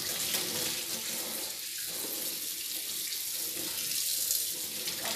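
Kitchen tap running steadily into a stainless steel sink, the stream splashing over a green bell pepper as it is rubbed clean under the water.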